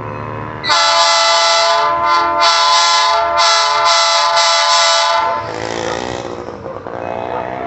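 Locomotive horn on an approaching passenger train, sounding one loud, steady chord for about four and a half seconds. Its sharper upper notes cut in and out several times. The horn stops and a quieter rumble of the train follows.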